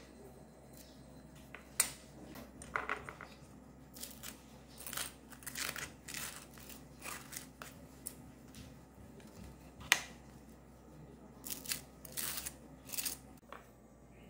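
Table knife scraping as soft cream cheese is spread over slices of crusty baguette on a wooden chopping board, in short strokes that come in clusters, with a few sharp clicks in between.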